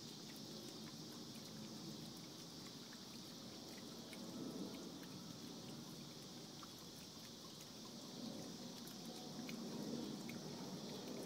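Small garden fountain bubbling and trickling into its stone basin, faint, with scattered small drips over a steady high hiss.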